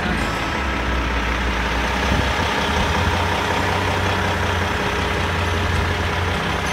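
Kenworth semi truck's diesel engine idling, a steady low rumble.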